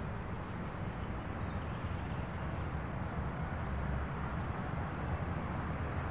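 Steady outdoor background noise with a low rumble and a few faint high ticks.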